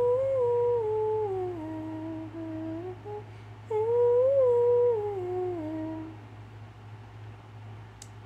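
A woman humming a wordless melody in two falling phrases, stopping about six seconds in. A steady low hum runs underneath, and there is a single click near the end.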